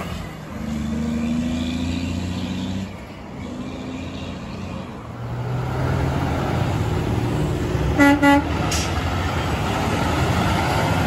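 Heavy diesel trucks running past, then about eight seconds in an International ProStar+ tractor's Hadley H00293N truck air horn gives two short, quick toots.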